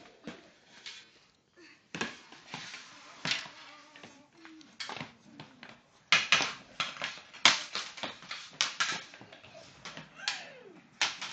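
A series of sharp clacks and knocks, some in quick runs of several: a floor hockey stick striking the ball and slapping the hard floor in a small room.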